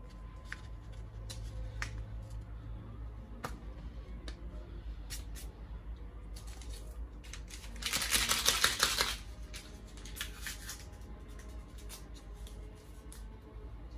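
Paper flour bag rustling and crinkling as it is handled, with scattered light clicks and taps; the loudest crinkling comes about eight seconds in and lasts about a second, with a shorter rustle soon after.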